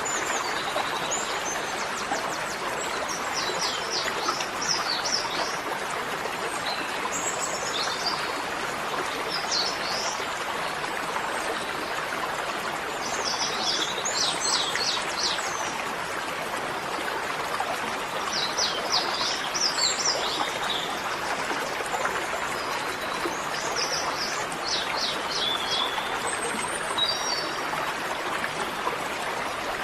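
Small birds chirping in short quick clusters every few seconds over a steady rushing noise.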